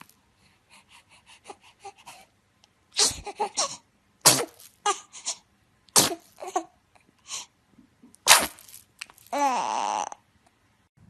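A baby sneezing: four sharp sneezes with small breaths and sniffles around them. Near the end comes a short pitched vocal sound that wavers in pitch.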